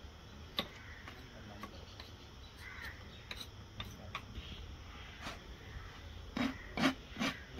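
Hoof knife paring and scraping the sole of a raised horse's hoof: irregular short scrapes and clicks. Near the end, three short, louder, harsher sounds.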